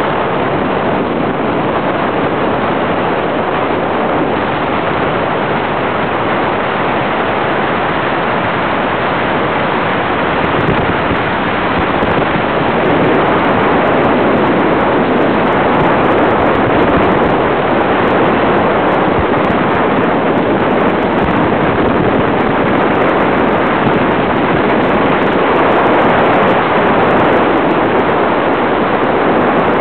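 Loud, steady wind rushing over the microphone of a camera riding down a long zip line, getting a little louder about twelve seconds in as the rider picks up speed.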